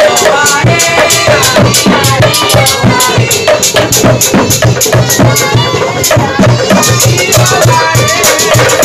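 Live obrog sahur street music: a hand drum and rattling percussion beating a fast, even rhythm while a man sings loudly over it.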